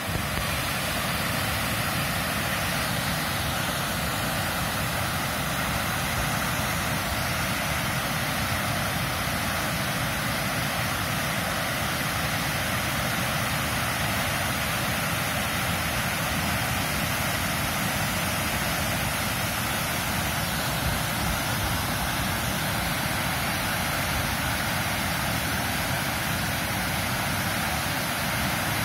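Floodwater rushing steadily through the arched openings of a low concrete dam and churning into whitewater below: the river is running in flood after heavy rain.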